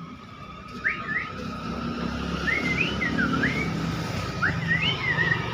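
Nias hill myna whistling: three quick runs of short, clear notes that swoop up and down in pitch, over a steady low hum.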